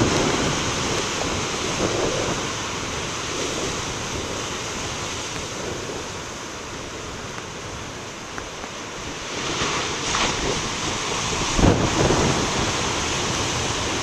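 Big wind-driven surf breaking against rocky ledges: a continuous wash of crashing waves and foam that eases off midway and builds again, with a heavy low thump a little before the end. Wind buffets the microphone.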